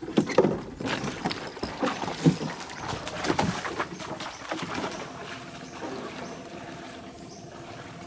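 Water splashing and sloshing as an angler wades into a shallow stream while playing a hooked fish. Irregular splashes come through the first half, then it settles to quieter water and rustling.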